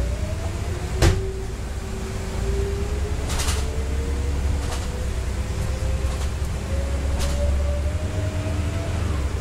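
Scania city bus's engine and drivetrain heard from inside the cabin while driving: a steady low rumble with a whine that climbs slowly in pitch as the bus gathers speed, breaking off near the end as the gearbox shifts up. A sharp knock about a second in and a few shorter clicks and rattles from the bus body.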